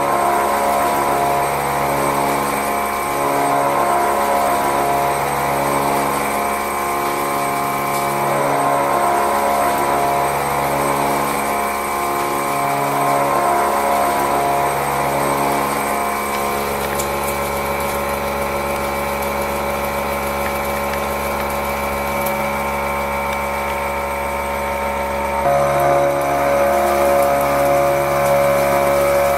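CNC milling machine's disc-shaped milling cutter cutting into a steel block: a steady, loud machining hum made of several tones with a slow pulse about every one and a half seconds. The pattern shifts and grows slightly louder about 25 seconds in.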